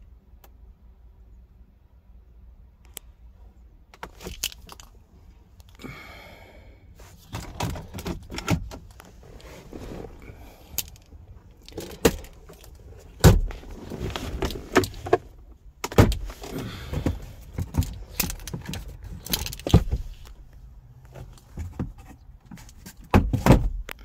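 A key, or a bunch of keys, jangling and clicking as it is handled, with many irregular knocks and rattles. There is no engine or starter running.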